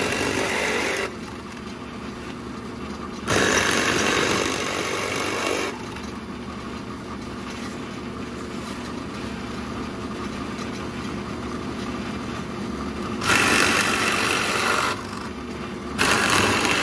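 Drill press motor running steadily with a 1-inch Forstner bit, broken by loud cutting passes as the bit plunges into the wood to hollow out a decoy body half. One pass ends about a second in, another comes a few seconds in, and two more come near the end.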